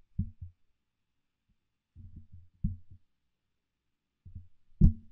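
Low, dull thumps in short clusters about every two seconds, the loudest just before the end.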